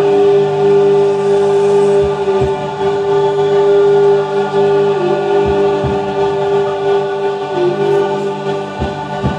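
A group of people toning one long held note together along with a chakra-sounds meditation music track, over a steady low drone. The note dips slightly in pitch about halfway through and again near the end.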